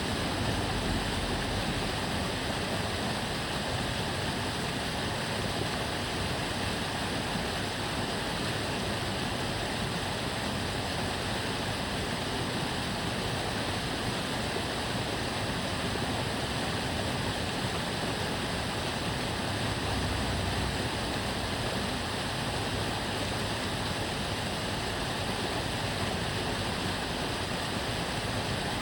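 Water flowing and babbling steadily along a narrow canal channel, a continuous even rush with no breaks.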